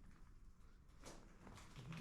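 Near silence: faint room tone, with a few faint scuffing sounds about a second in.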